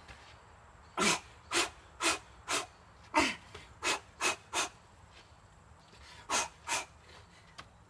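A man puffing out short, sharp breaths, about ten in three quick bunches, blowing against the heat of food just off the stove.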